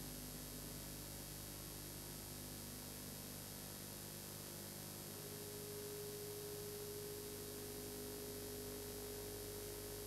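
Steady hiss and low hum of the recording's background noise, with no other sound; a faint steady tone joins about halfway through.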